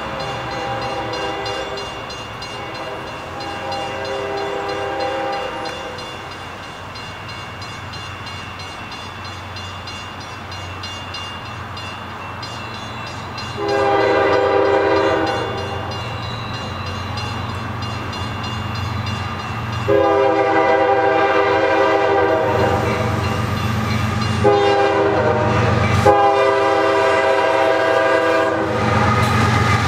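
Air horn of an approaching Union Pacific GE ES44AC freight locomotive sounding for grade crossings. Two faint blasts in the first six seconds, a loud long blast about 14 seconds in, then long, short, long from about 20 seconds on: the standard crossing signal. Under the horn the diesel engines' low rumble grows louder as the train draws near.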